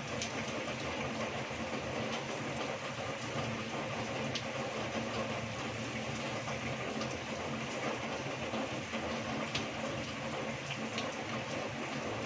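Heavy rain falling steadily and running off a roof edge, with a few sharper drop hits here and there.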